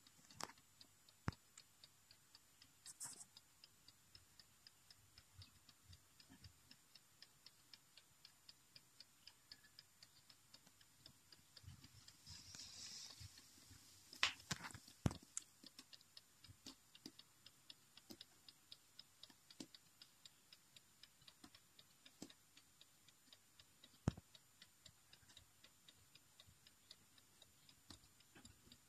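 Clock in a carved wooden barometer-thermometer wall piece ticking faintly, with quick, even ticks. A few louder clicks break in around the middle.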